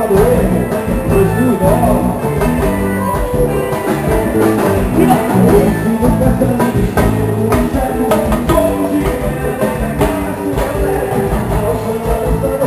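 Instrumental stretch of a dance track with no singing: a plucked string melody over a steady drum beat.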